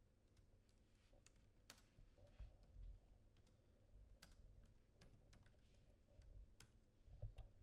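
Faint, irregular clicks of fingers tapping on a phone, with a few soft low thumps from handling it.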